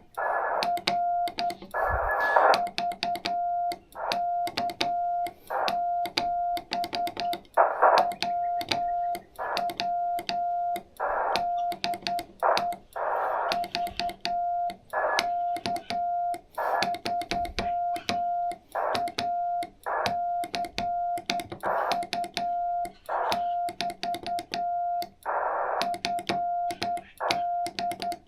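Morse code (CW) on a steady tone of about 700 Hz, keyed in dots and dashes throughout, with sharp clicks across it and a few short bursts of hiss.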